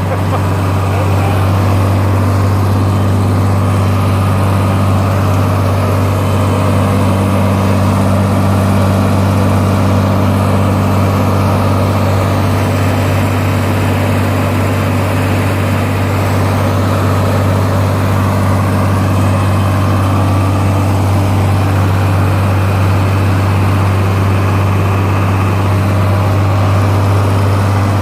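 John Deere 4020 tractor's six-cylinder engine running steadily under load, breaking in its new engine while driving a grain vac.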